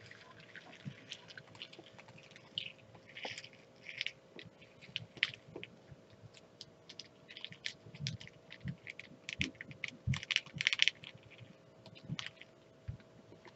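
Small resin diamond-painting drills rattling and clicking as they are poured into a small plastic storage bottle, along with clicks from the bottle being handled. The clicking comes in irregular clusters, with the densest, loudest rattle around ten seconds in.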